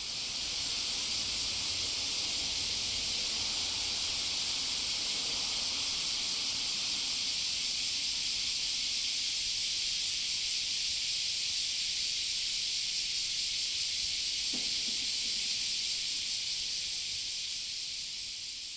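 Steady hiss that fades in at the start and fades out near the end, with a faint brief knock about two-thirds of the way through.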